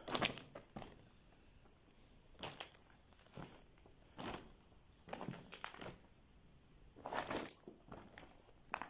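Irregular crunching footsteps on loose rock and grit on a cave floor, about seven short scrapes with quiet between them.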